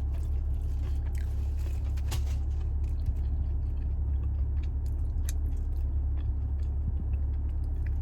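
Close-up chewing and biting on a crunchy fried sweet potato, with small irregular crunches and mouth clicks. A steady low hum sits underneath.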